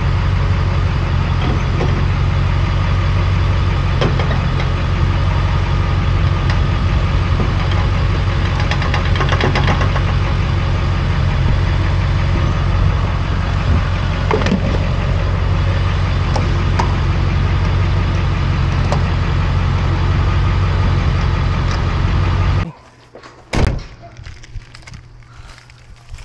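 Vehicle engine running with a steady low hum. About three-quarters of the way through it cuts off suddenly to much quieter surroundings, where a single sharp knock sounds.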